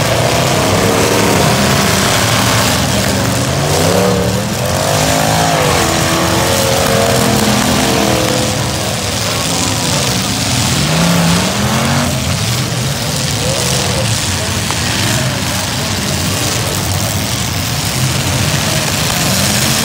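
Several eight-cylinder demolition derby cars running hard, their engines revving up and down in pitch, as they spin their wheels through mud.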